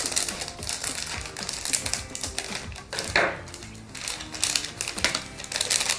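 Crinkling and tearing of a small plastic packaging packet being opened and rummaged through, in rapid irregular crackles.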